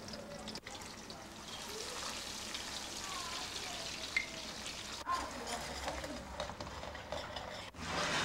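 Garlic frying in olive oil in a pan: a steady sizzle, with faint voices behind it. The sound breaks off and resumes abruptly a couple of times.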